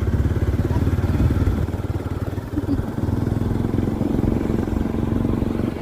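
A vehicle engine running steadily, a low rumble of rapid, even firing pulses.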